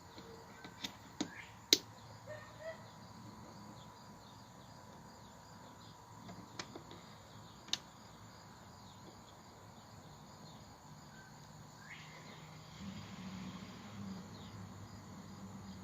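A Crosley portable turntable making faint record hiss and a steady hum, with a few sharp clicks and pops: a cluster in the first two seconds and two more around seven seconds in.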